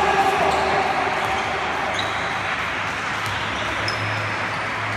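Handball match sounds in a reverberant sports hall: the ball bouncing on the court amid a steady hubbub of player and spectator voices.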